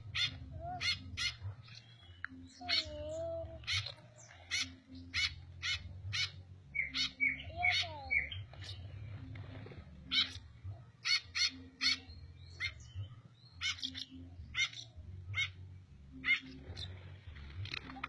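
Pet parrot making many short, sharp chirps and squeaks at irregular intervals, with a few brief gliding calls, over a steady low hum.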